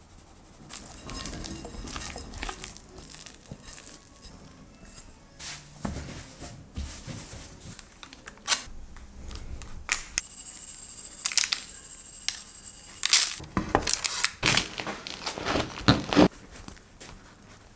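Close-up bread-baking handling noises: rustling and scraping of flour and dough, and parchment paper crinkling. Near the end comes the loudest part, a knife sawing through the crisp crust of a baked loaf with dense crackling.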